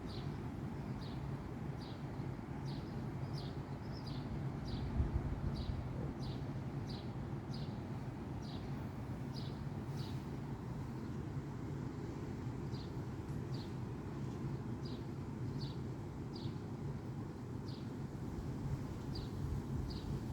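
A small bird repeating a short, slightly falling high call about twice a second, pausing now and then, over a steady low background hum.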